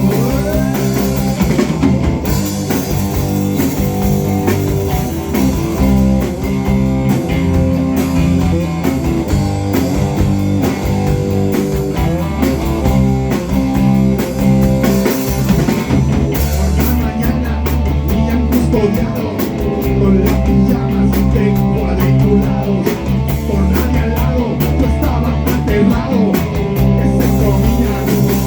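A band playing a rock song live in rehearsal, with guitar and a drum kit keeping a steady beat.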